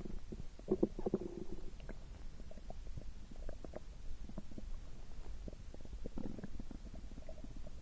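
Human stomach rumbling: a run of short gurgles and pops, with a longer gurgle about a second in.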